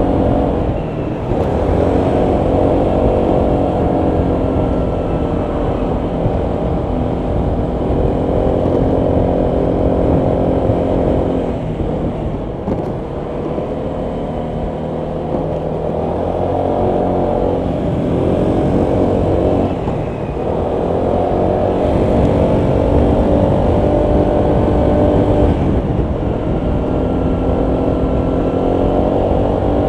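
Honda PCX 125 scooter's single-cylinder four-stroke engine running while riding, with wind and road noise. It eases off and picks up again several times, with a longer, quieter stretch just before the middle.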